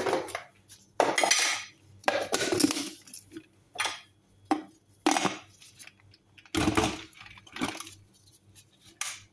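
Irregular clatter and knocks of a plastic blender jar and its lid being handled: the lid pressed on and the jar set down onto the blender's motor base, about ten separate clunks with a heavier thud about two-thirds through. The blender motor is not yet running.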